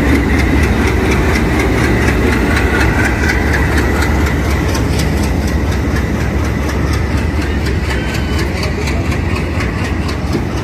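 A train's heavy locomotive engine running steadily with a deep rumble, a fast regular ticking riding over it.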